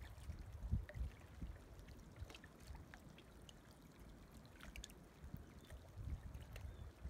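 Small waves lapping and splashing at a lake's edge, with gusts of wind rumbling on the microphone.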